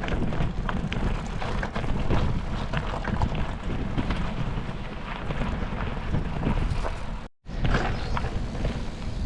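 Wind buffeting the microphone of a moving bicycle, a loud, rumbling rush with scattered light clicks and rattles. The sound cuts out completely for a moment about seven seconds in.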